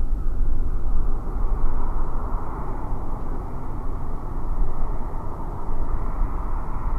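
Jet airliner on final approach to land, its engines a steady, broad rumble and rush.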